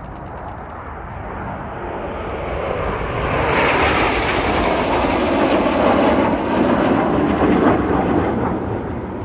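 Red Arrows BAE Hawk T1 jets, Rolls-Royce Turbomeca Adour turbofans, making a display pass: the jet noise builds over the first few seconds, is loudest through the middle and eases off near the end.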